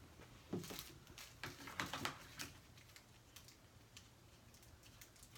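Faint small clicks and soft rustles of hands handling medical supplies and packaging on a plastic table, mostly in the first two and a half seconds, then quieter.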